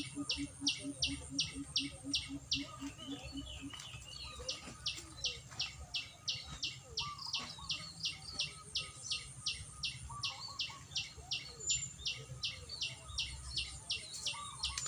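A rapid, evenly repeated high chirping, about three or four chirps a second, that pauses for about two seconds early on and then resumes. Softer scattered bird chirps sound around it.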